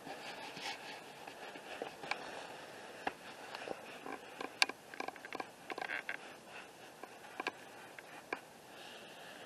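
Rustling and scraping in dry grass and fallen leaves, with scattered sharp clicks that come thick and fast from about four to six seconds in.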